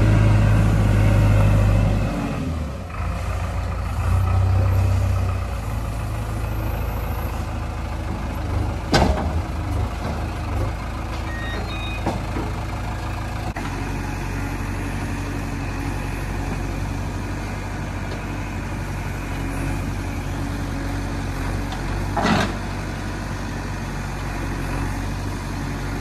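JCB 3DX backhoe loader's diesel engine working under load: it revs hard at first, eases off briefly, revs again, then settles to a steady run. Two sharp knocks cut through, one about a third of the way in and one near the end.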